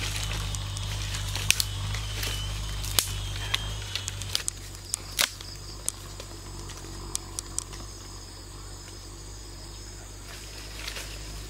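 Scattered sharp snaps and clicks of dry bamboo sticks, first handled and laid, then crackling in a small twig fire that has just been lit.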